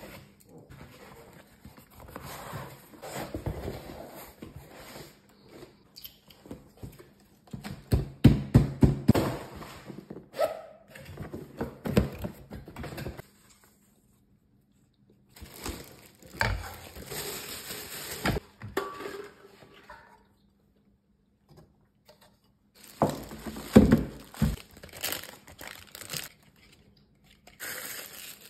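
Unboxing sounds: cardboard box flaps and paper being handled, plastic wrapping crinkling, and sharp knocks of parts being handled and set down. They come in bursts, loudest about a third of the way in, with short silent pauses between.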